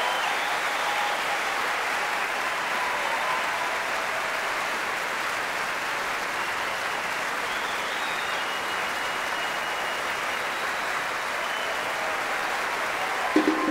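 Large concert-hall audience applauding steadily. The last brass notes die away in the first second, and the brass band starts playing again at the very end.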